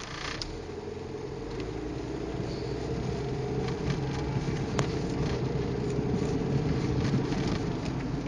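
Steady engine and road drone inside a moving car's cabin, with a few light clicks and creaks from the interior and one sharper click about halfway.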